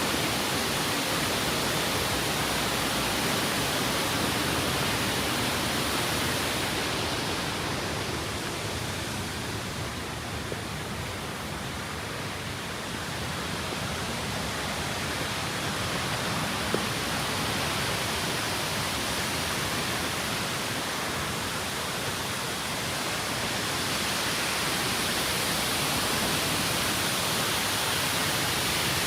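Água d'Alto waterfall: falling water making a steady rushing noise that eases a little for a few seconds, twice.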